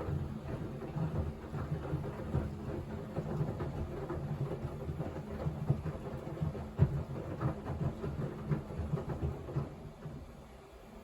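Haier washer-dryer drum turning at the start of a wash, wet towels tumbling with irregular soft thuds and clicks over a steady motor hum. The drum goes quiet near the end.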